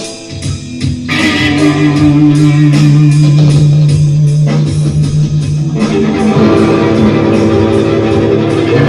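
A band playing an instrumental passage led by electric guitar, with bass guitar underneath; the held chord changes about a second in and again near six seconds.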